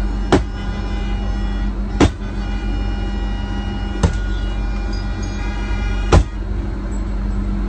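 Four sharp blows on a bus windshield, about two seconds apart, as an object is struck against the cracking glass, over the steady hum of the idling bus.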